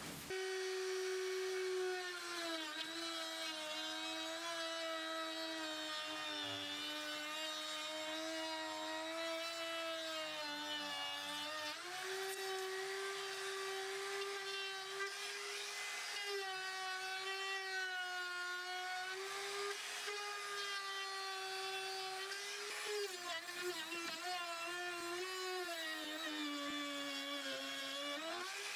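Cheap no-name 800-watt trim router running with a high motor whine while cutting wood. Its pitch sags several times as the bit takes load, most clearly about ten seconds in and again near the end, then climbs back.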